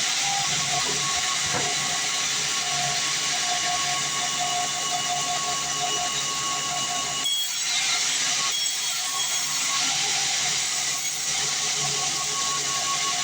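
Sawmill band saw running steadily: a hissing noise with a steady whine under it, changing briefly about halfway through.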